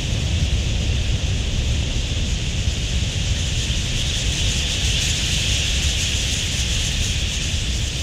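Dense, steady chatter of thousands of wild budgerigars flying in a huge flock, swelling about halfway through, over a low wind rumble on the microphone.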